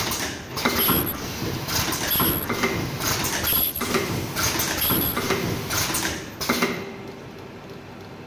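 Ultrasonic mask earloop welding machine running through its automatic cycle: a rhythmic clatter of pneumatic and mechanical strokes repeating about every one and a half seconds, each with a short high-pitched tone. The strokes stop near the end, leaving a quieter mechanical hum.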